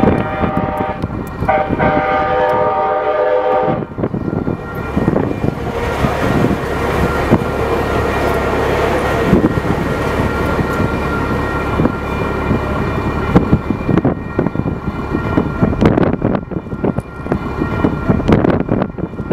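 RTD light rail train sounding its horn in two blasts, a short one and then a longer one of about two seconds, followed by the steady rumble and clatter of the train rolling past on the rails.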